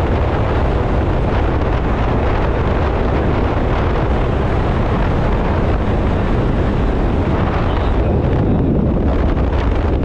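Steady, loud wind buffeting the microphone, with road rumble from a moving car.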